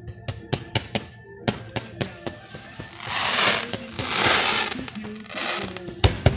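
Aerial fireworks: a quick run of sharp bangs, then long crackling, hissing bursts about three seconds in, and loud bangs again near the end.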